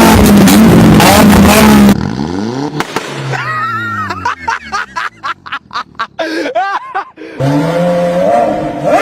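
Loud car engines revving through their exhausts in several short clips. The first is a very loud, dense rev that cuts off about two seconds in. Then an engine note falls away, and another engine idles and revs up again near the end.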